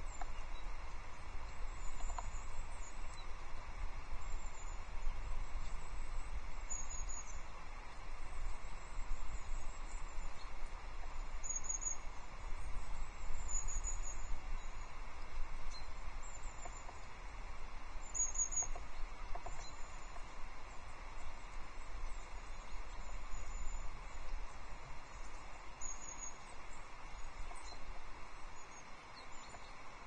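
Small tits calling: short, very high, thin notes, often two or three in quick succession, repeated every second or two. Under them runs a low steady rumble.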